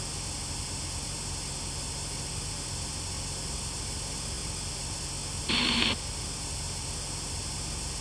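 Steady static hiss from the GhostTube spirit box app sweeping between questions, with one short louder blip of sound about five and a half seconds in.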